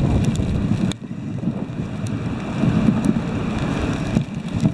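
Wind rumbling on the microphone and a dog sled's runners sliding over packed snow as the sled moves along, a steady noise with a brief drop about a second in.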